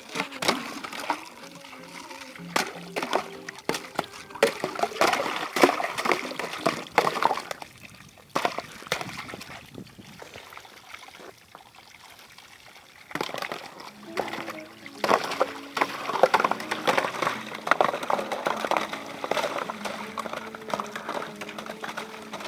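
Running water from a tube well splashing and sloshing in irregular gushes. It goes quieter for a few seconds about eight seconds in, then picks up again.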